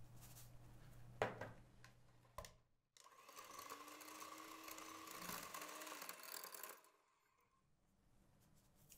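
Electric hand mixer running steadily for about four seconds as its beaters whip egg whites and sugar in a glass bowl, then stopping. A sharp click comes about a second in, before the mixer starts.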